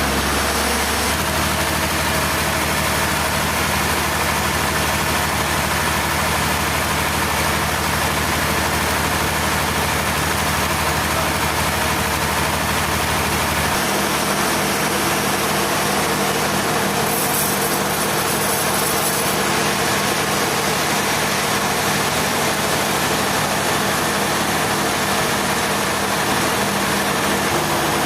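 Sawmill machinery running steadily: a continuous engine hum under a dense hiss. The low hum shifts about a second in and again around halfway through.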